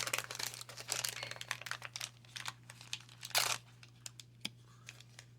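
Paper wrapper of a 1990 Fleer baseball card wax pack being torn open and crinkled by hand, dense crackling for about two seconds, one more sharp crinkle a little past three seconds in, then a few light rustles and clicks.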